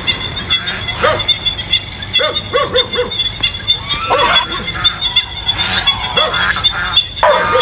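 A flock of geese honking, many short nasal calls often coming in quick pairs or threes. Under them runs a steady high insect trill.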